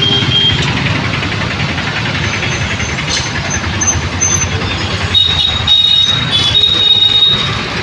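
Steady roadside traffic noise with a low rumble. A high-pitched squeal sounds briefly at the start, and again for about two seconds in the second half.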